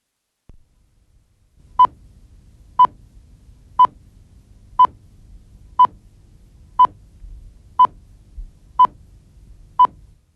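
Nine short electronic beeps, all of one pitch, one each second, over a faint low hum: a countdown before the programme starts.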